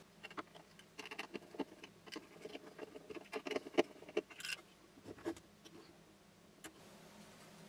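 Small hand screwdriver turning screws to fasten a limit switch onto a 3D-printed plastic block: a string of faint, irregular clicks, ticks and scrapes of the tool and parts, thinning out near the end.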